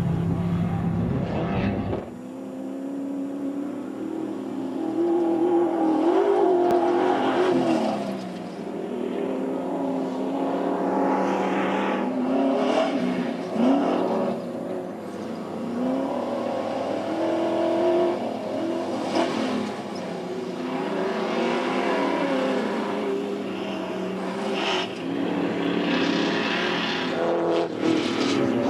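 Engines of 1450-class and Class 7 off-road race trucks revving and passing one after another, the pitch rising and falling with each truck. About two seconds in, the deep low rumble drops away abruptly.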